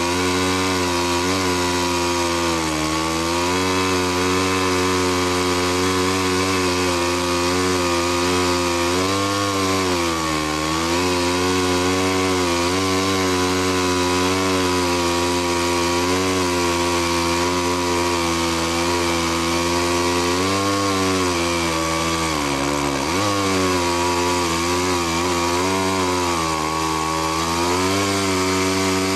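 Two-stroke chainsaw running at full throttle while ripping lengthwise through a log, its engine note dipping briefly a few times as the cut loads it and then picking back up.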